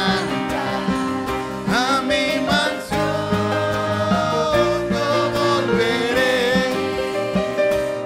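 Live church worship music: singers at microphones with instrumental accompaniment, sung vocal lines rising and falling over sustained chords.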